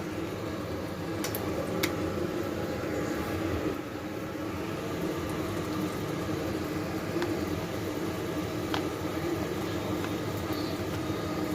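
Steady mechanical hum of a fan or motor running, with a few faint light clicks of a spatula against the cooking pan as the curry is stirred.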